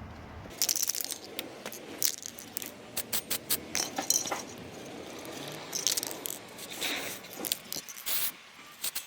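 Small metal parts of a car starter motor clinking, rattling and scraping as they are handled, an irregular run of short, sharp clicks.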